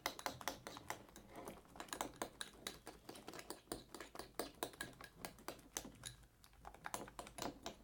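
Homemade borax slime being squeezed and kneaded by hand, giving a quick, irregular run of small sticky clicks and pops.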